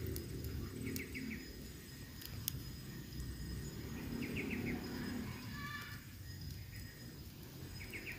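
Birds chirping in short bursts of three or four quick notes about every three seconds, over a steady high insect drone and a low rustle.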